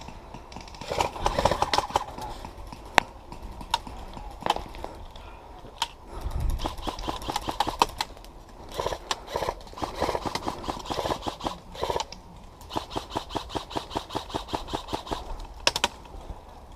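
Airsoft guns firing in an exchange: several runs of rapid, evenly spaced shots, about seven a second, from electric airsoft rifles, with single sharper cracks in between.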